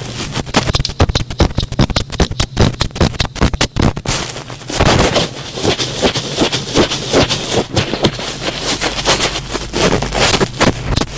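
Thick cotton swab rubbed and pressed against the microphone in ear-cleaning ASMR, giving rapid scratchy, crackling strokes that thicken into denser, steadier rubbing about five seconds in.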